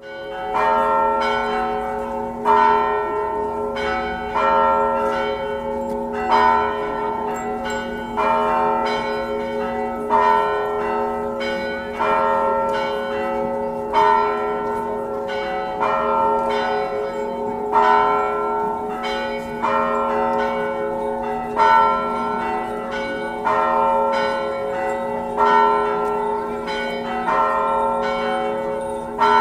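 Several church bells ringing in quick succession, their strikes overlapping over a sustained hum. The round repeats with a louder stroke about every two seconds.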